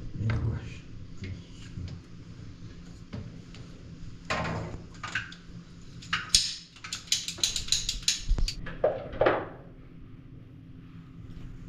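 A quick run of sharp clatters and knocks from hard objects being handled, about a dozen in three seconds, over a steady low hum.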